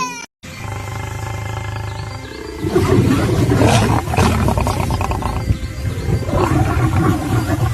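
A loud, rough animal vocalisation starting about three seconds in and carrying on, after a steady held tone in the first couple of seconds.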